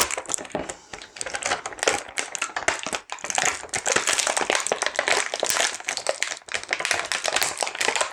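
Plastic packaging crackling and clicking as it is handled and opened during a toy unboxing: a dense, irregular run of small clicks and crinkles.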